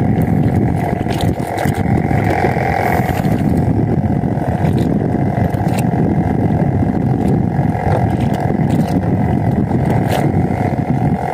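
Small boat's engine running steadily, its drone mixed with the rush of wind and water.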